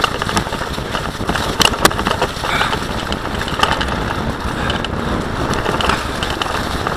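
Bicycle rolling fast over a rough trail while towed by dogs: a steady rumble of tyres on the ground, with frequent sharp clicks and rattles from the bike.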